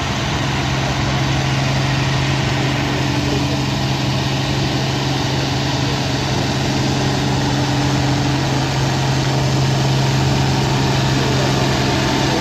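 Turbocharged IH Farmall 560 tractor engine idling steadily with a constant low hum.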